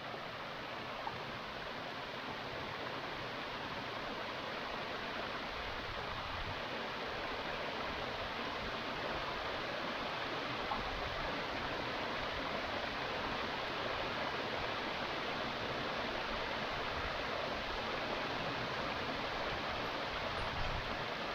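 Waterfall on a small stream: a steady rush of falling water.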